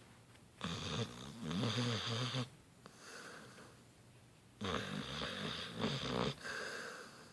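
A beagle-bloodhound mix dog snoring in her sleep: two long, rattling snores about four seconds apart, each followed by a softer breath out.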